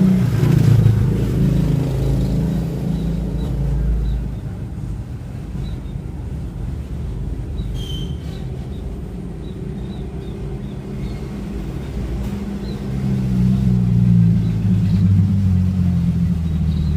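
Low rumble of a motor engine running, growing louder about thirteen seconds in, with faint short high chirps over it.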